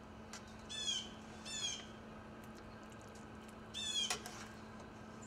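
A bird calling: three short squawks, each dropping in pitch, over a steady low hum.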